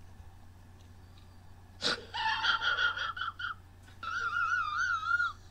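A high-pitched whimpering whine in two stretches: a broken run of squeaks starting about two seconds in, then a longer warbling tone that wavers up and down.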